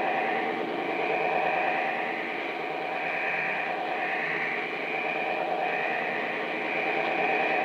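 Weird, eerie noise on 5.100 MHz shortwave from a Realistic DX-390 receiver's speaker. It is a steady, buzzy drone with a constant mid tone and a higher band that wavers up and down, over hiss. The signal's source is unidentified.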